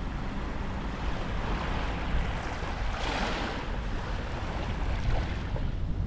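Gentle waves washing up a sandy beach and running back, over a steady low rumble. The hiss of the surf swells about halfway through.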